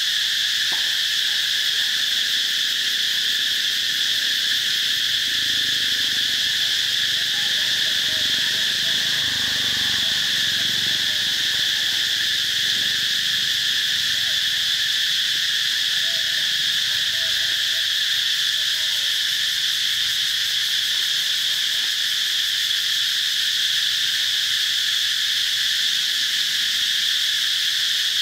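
Loud, steady insect chorus: an unbroken high-pitched drone that holds level throughout. Faint rustling rises under it about a third of the way in.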